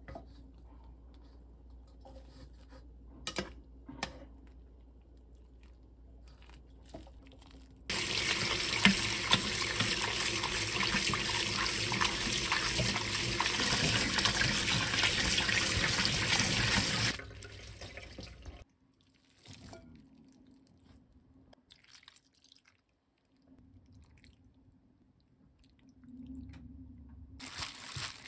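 Tap water runs into a stainless mesh strainer as boiled kalguksu noodles are rinsed under it. The water starts about eight seconds in and stops abruptly about nine seconds later. Before it there are a few faint clicks of metal tongs lifting the noodles from the pot, and near the end the soft crinkle of a plastic glove mixing the noodles in a glass bowl.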